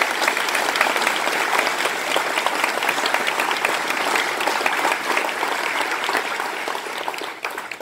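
Audience applauding, a dense steady clatter of many hands clapping that tapers off near the end.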